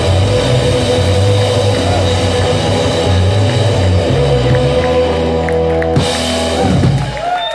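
Live indie-rock band playing the end of a song on electric guitar, bass, keyboard and drum kit. A final hit comes about six seconds in, and the music dies away near the end.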